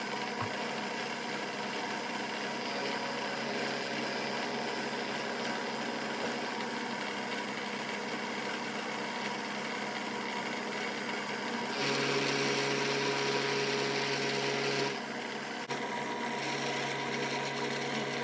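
Bridgeport milling machine running steadily as it faces a block of aluminium, its motor and spindle giving a constant whine. About twelve seconds in, a louder hissing stretch with a low hum joins for about three seconds, and it comes back near the end.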